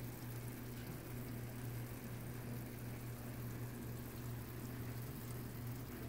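Pieces of beef and ribs sizzling and bubbling in their juices in a pan, a soft steady crackle. A steady low hum runs underneath.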